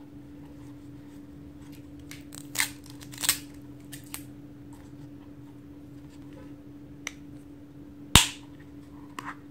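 Plastic gachapon capsule being handled, with a few light clicks and taps, then a sharp snap about eight seconds in as its two halves are twisted apart. A faint steady hum runs underneath.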